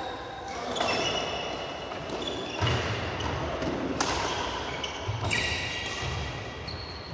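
Badminton doubles rally: sharp racket hits on the shuttlecock, loudest in a smash about four seconds in, with high squeaks of shoes and thuds of footfalls on the court.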